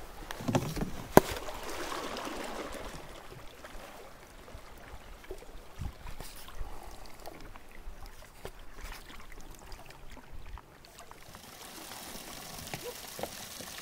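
Canoe being paddled: water swishing and trickling around the paddle and hull, with small knocks and one sharp knock about a second in. Near the end it gives way to a steadier hiss.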